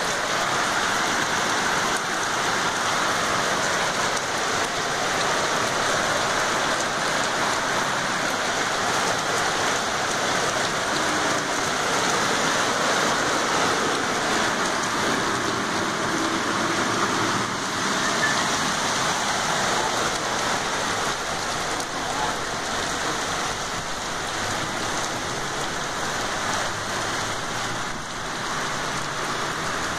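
Heavy rain pouring down on a flooded street and lawn: a steady, even hiss of rainfall.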